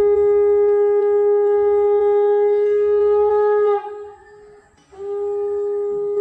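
Two long, steady, horn-like blown notes on one pitch. The first dips in pitch and breaks off about four seconds in; the second starts about a second later and is held.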